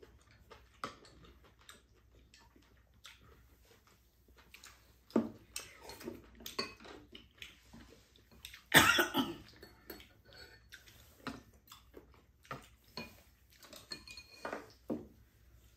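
Two people eating at a table: chopsticks and spoons clicking against bowls and a pan, with chewing and slurping. Short scattered clicks throughout, and one louder, harsher sound about nine seconds in.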